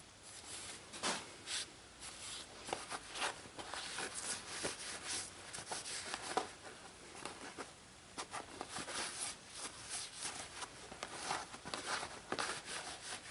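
Wax being rubbed into a hot forged-steel fork: faint, irregular rubbing and scraping strokes with occasional light clicks and knocks.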